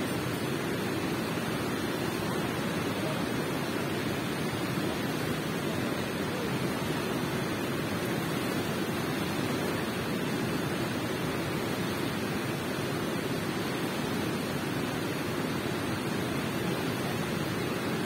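Water rushing steadily in a cave: an even, unbroken rush with no separate splashes or drips.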